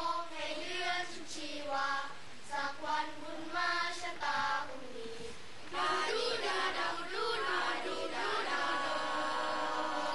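Boys' choir singing a slow song in sung phrases with short breaths between them, closing on a long held note near the end.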